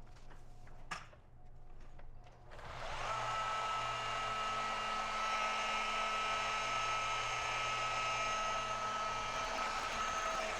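Electric sanding tool with a 180-grit abrasive disc starting up about two and a half seconds in, then running steadily on a glass pane: a constant motor whine over the hiss of the abrasive on the glass.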